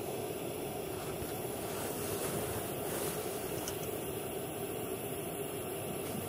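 Portable Shmel gas burner running with a steady, puffing roar and hiss.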